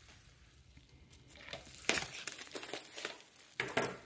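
Plastic bubble wrap crinkling as hands turn and unwrap a small taped box, starting about a second and a half in, with the sharpest crackle near the end.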